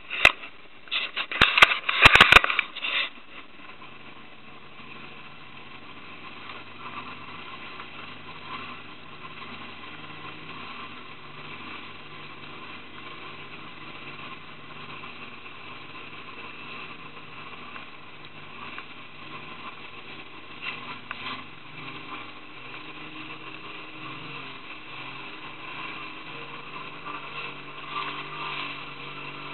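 Motorboat engine running steadily under a hiss of rushing water and wind. Loud knocks and crackling during the first three seconds.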